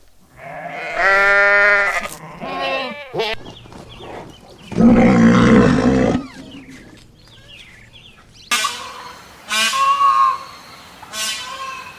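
A series of animal calls: several pitched, wavering cries with rich harmonics, and about five seconds in, one loud, rough, noisy call lasting over a second.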